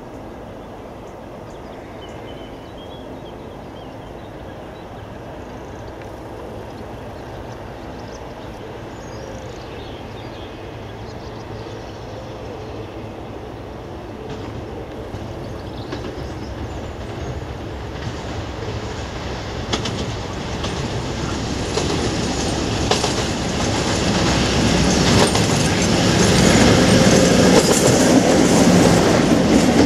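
Class 56 diesel locomotive's Ruston-Paxman V16 engine running as it approaches with a train of freight wagons. It grows steadily louder and passes close by near the end, with the wheels clicking over the rail joints as it nears.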